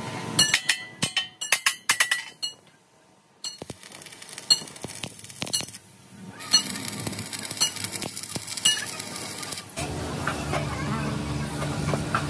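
Sharp metallic clinks and knocks on steel, a quick cluster in the first two seconds, then single ringing strikes about once a second. A steady machine hum starts near the end.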